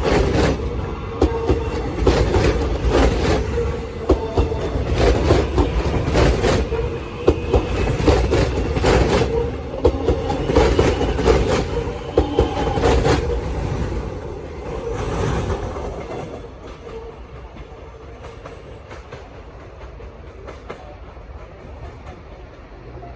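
Alstom X'Trapolis electric multiple unit pulling away at low speed, its wheels clacking over rail joints and points roughly once a second over a steady whine. About sixteen seconds in the sound drops away as the train moves off.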